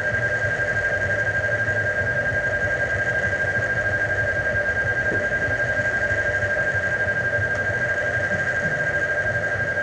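A continuous high-pitched buzzing tone with a weaker lower hum beneath it, pulsing rapidly and evenly like an alarm.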